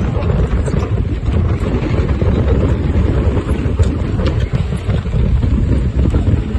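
Steady wind rumble on the microphone aboard a sailboat under way, with water rushing along the hull and a few faint clicks.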